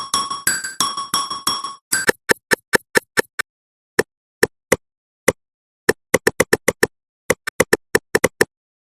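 Metronome ticking: at first ringing, bell-like ticks about three to four a second, every fourth one higher-pitched as the accented downbeat. About two seconds in it changes to short, dry clicks in runs at changing tempos, with pauses between the runs.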